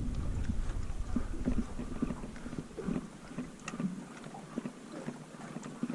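A small boat drifting on open water: a low wind-like rumble that drops away about two seconds in, then scattered light knocks and splashes.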